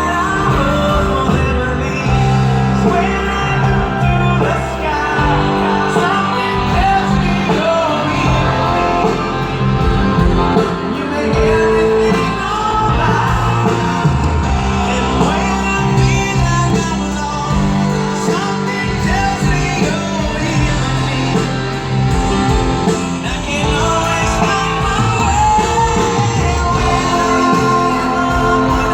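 Live rock band performing a song with singing over guitar, bass and drums, recorded from the audience in a large concert venue.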